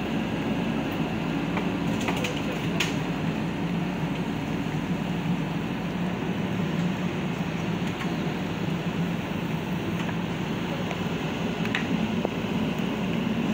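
A JCB backhoe loader's diesel engine running steadily at low revs. A few light clicks come through about two seconds in and near the end.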